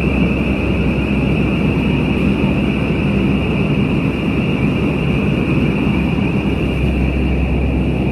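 Building fire alarm sounding a continuous high-pitched tone, over a steady low rumble.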